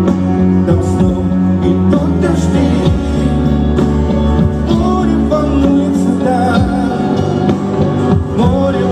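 A live band performing a pop-rock song with a singer's voice over the instruments, loud and continuous.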